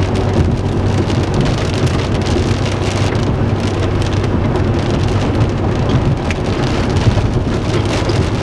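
Rain falling on a storm chasers' car, a dense steady patter of drops, with a steady low hum underneath.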